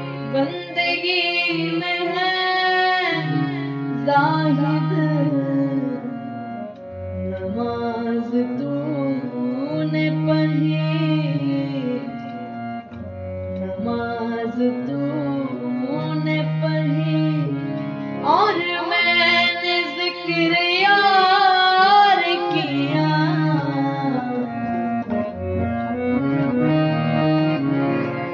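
Qawwali, Sufi devotional song: a woman sings held, ornamented lines at the start and again about two-thirds of the way through. Between them, an instrumental melody plays over a sustained bass line that shifts note every second or two.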